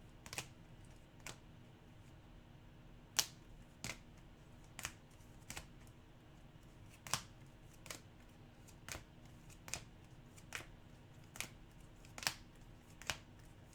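Trading cards being flipped through and set down one at a time, each one a short, light click, about one a second.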